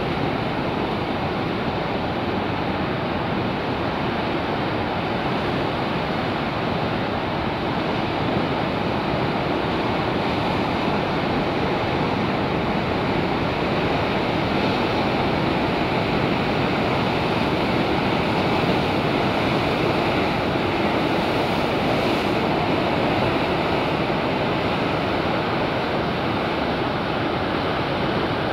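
Heavy Pacific surf breaking and washing over coastal rocks: a continuous, steady rush of surging whitewater, somewhat dulled in the highs by tape over the microphone.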